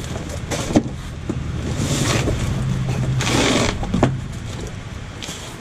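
Cardboard box flaps being opened and plastic packaging rustling, with two louder rustles in the middle, over a low steady rumble.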